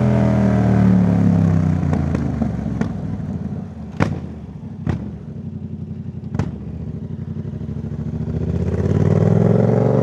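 Yamaha MT-07's parallel-twin engine through a Jeskap full aftermarket exhaust, heard while riding: the engine note falls away as the throttle closes and stays lower through the middle, with several short sharp pops, then climbs again under acceleration near the end.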